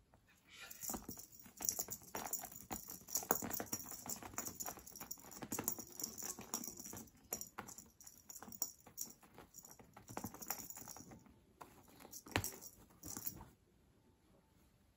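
Colourful string cat toy being dragged and flicked across tatami mats: a busy run of small clicks and rattling rustles that stops near the end.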